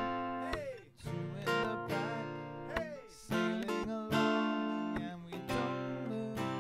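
Acoustic guitar strumming chords in a steady rhythm, with a trombone playing along near the end.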